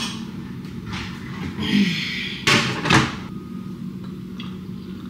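Kitchen cupboard doors being opened and shut: a short scrape just under two seconds in, then two sharp knocks about half a second apart, over a faint steady hum.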